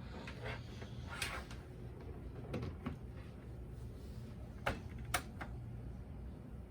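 Shaded-pole fan motor of a 1997 Duracraft fan-forced space heater humming steadily on fan mode but stalled: it vibrates without turning the blade. A few sharp clicks and knocks sound over the hum.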